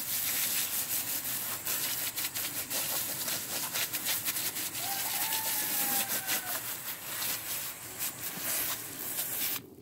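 Garden hose spray nozzle jetting water onto a freshly plucked chicken carcass to rinse it: a steady hiss and spatter that cuts off suddenly near the end.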